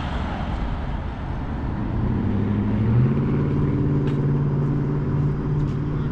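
A road vehicle's engine running close by, its pitch rising about two to three seconds in and then holding steady, over a background of traffic noise.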